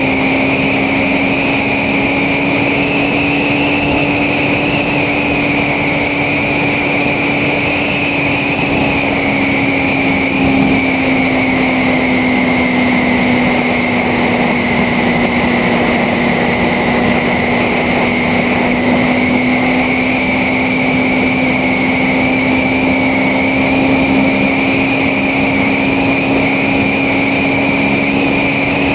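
Motorcycle engine running steadily at cruising speed, its note dipping slightly in the middle and climbing back, with wind rushing over the on-board camera's microphone.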